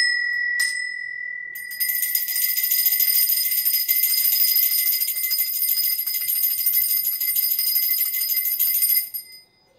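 Brass puja bell being rung: one strike, a second about half a second later, then rapid continuous ringing. The ringing cuts off about nine seconds in.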